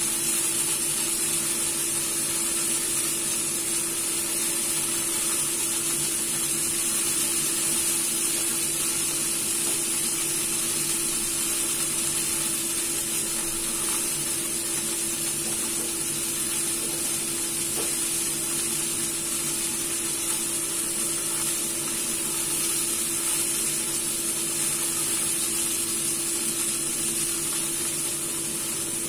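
Chicken wing rolls sizzling in hot oil in a frying pan as they are turned, a steady frying hiss. A steady hum runs underneath.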